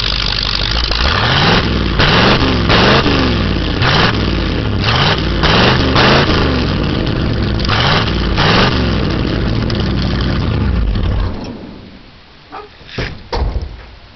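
1983 Ford F-350 truck engine running through a newly fitted exhaust, louder than stock: it idles, is blipped up and back down repeatedly for several seconds, and then cuts off about eleven seconds in. A few sharp knocks follow near the end.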